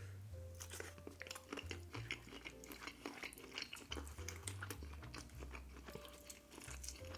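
Close-up chewing of breaded Cajun fries, with many small irregular crunching clicks.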